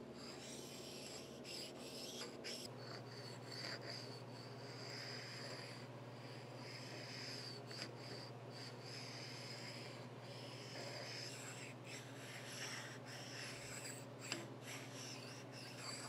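Faint hand work on a cast-iron machine saddle: soft rubbing strokes every couple of seconds and scattered light clicks, over a steady low hum.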